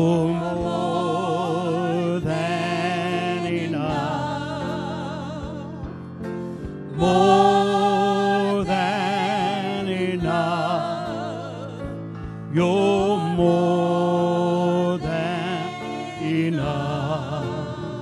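Gospel worship song: long held sung notes with vibrato over a steady instrumental accompaniment, in drawn-out phrases that swell in every five or so seconds.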